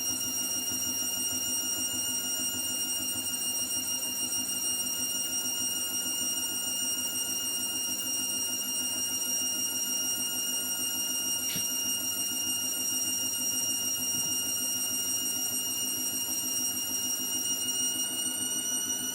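Hotpoint WMBF742 washing machine spinning: its motor gives a steady high-pitched whine over a low hum. A single sharp click comes about halfway through.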